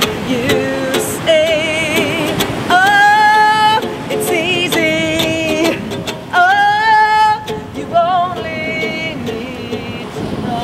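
Music: a high female voice sings a wordless melody with vibrato, holding long notes of about a second, over strummed ukulele.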